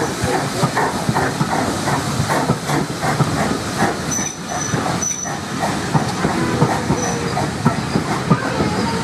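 Vintage railway coaches of a departing steam train rolling past at low speed, their wheels clattering over the rail joints in a quick, even rhythm. A few brief high squeaks come about four to five seconds in.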